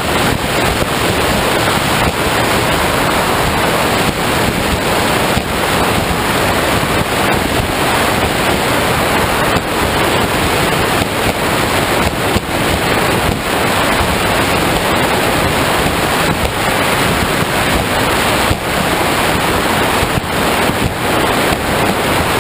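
Wind buffeting the microphone of a speeding performance powerboat, over water rushing and spraying off the hull: a loud, steady rushing noise that flickers irregularly.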